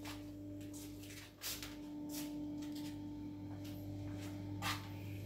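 A few soft, irregular footsteps on a tiled floor over a steady low electrical hum.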